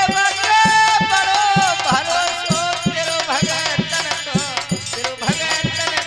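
Devotional bhajan music: a high melody held and then bending through short turns, over regular drum strokes at about three a second.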